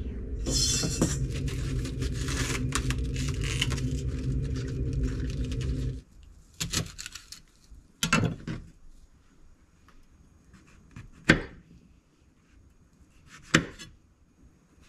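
Kitchen knife knocking on a wooden cutting board while slicing perilla leaves and mushrooms: a few separate sharp knocks, the two loudest near the end. For about the first six seconds a steady low hum with rustling runs beneath, then stops abruptly.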